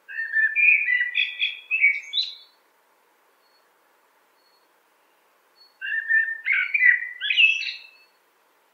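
Common blackbird singing: two warbling song phrases of about two seconds each, a few seconds apart, each ending in higher twittering notes.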